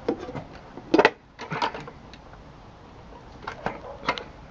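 Plastic clicks and knocks from a clear weatherproof outlet cover being opened and a charging cable's plug being pushed into a 240 V NEMA 14-50 outlet. The sharpest click comes about a second in, with a few lighter clicks near the end.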